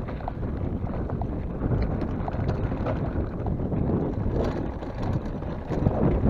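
Mountain bike rolling fast down a rocky gravel track: tyres crunching over loose stones and the bike rattling with small clicks, with a few harder jolts near the end, under wind rumbling on the microphone.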